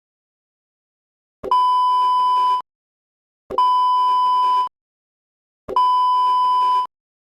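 Three long electronic beeps, one steady tone each about a second long and about two seconds apart, with dead silence between.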